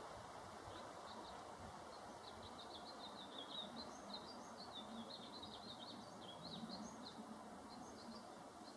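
Faint birds chirping in quick runs of short, high notes, busiest through the middle, over a steady outdoor background hiss.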